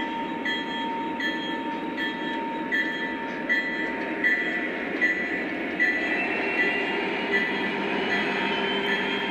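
Lionel Legacy O-gauge Norfolk Southern diesel locomotives running under their onboard sound system, with a steady engine rumble and rolling noise on the three-rail track. The locomotive bell rings about twice a second, and from about six seconds in a whine rises slowly in pitch as the engines rev up.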